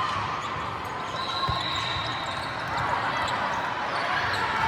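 Crowd chatter echoing in a gym, with a ball thumping once about a second and a half in.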